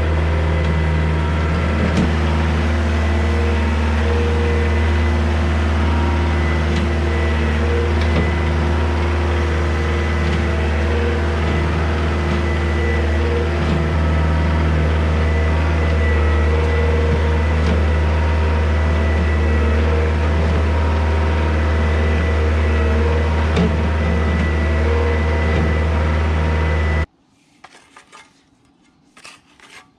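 Compact loader tractor's diesel engine running steadily under load while spreading soil, with a thin steady high whine above the engine note; the note shifts slightly a couple of times. Near the end it cuts off suddenly, leaving a few faint scrapes of a shovel in soil.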